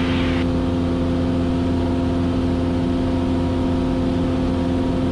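Cessna 172S's four-cylinder Lycoming engine and propeller droning steadily in cruise-climb, a hum of several steady tones. A hiss over it stops about half a second in.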